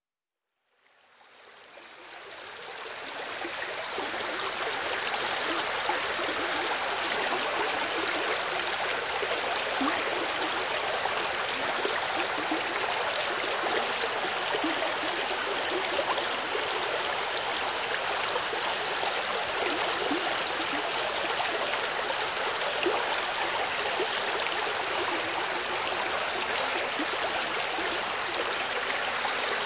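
Running water of a stream, a steady rushing with light burbling, fading in about a second in and holding steady from about four seconds on.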